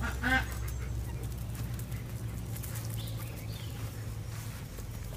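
A duck gives one short quack just after the start. After that there are only faint scuffs over a steady low background hum.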